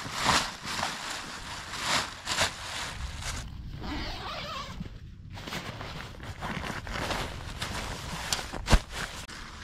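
Irregular rustling and zipper-like swishes of tent gear being handled, with a sharp click about nine seconds in.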